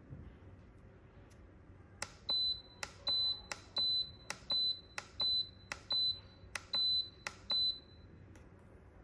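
Re·De Pot electric pressure cooker's control panel beeping at each press of its menu button: a row of about nine short, high beeps, a little over one a second, each opening with a faint click. The beeps start about two seconds in and stop shortly before the end.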